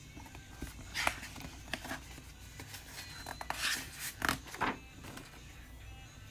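A page of a picture book being turned by hand: a few short paper rustles and light handling clicks, the loudest a little after the middle.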